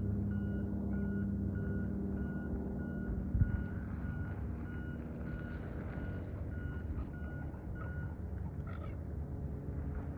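Vehicle reverse alarm beeping about twice a second over a low engine rumble, stopping about eight seconds in. A single sharp knock about three seconds in is the loudest moment.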